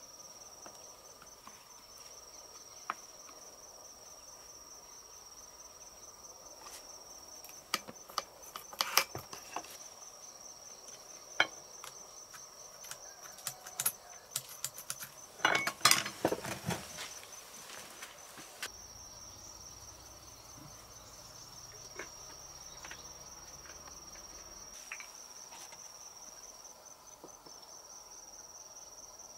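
Insects chirring steadily in a high, fast-pulsing drone, with a run of sharp clinks and knocks partway through that is densest in a cluster near the middle.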